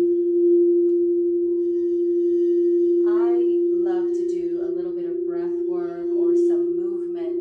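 A crystal singing bowl played with a wand, ringing one steady, strong tone. About three seconds in, a woman's voice joins over it.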